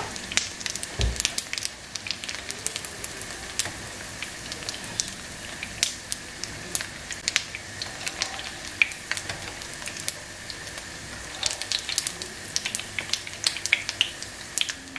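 Zucchini and pasta fritters shallow-frying in hot oil in a pan: a steady sizzle with frequent sharp crackles and pops of spattering oil.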